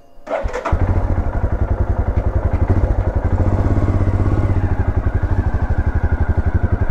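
Royal Enfield Himalayan's single-cylinder engine on its stock exhaust, catching under a second in and then running with an even, rapid beat of firing pulses as the bike pulls away.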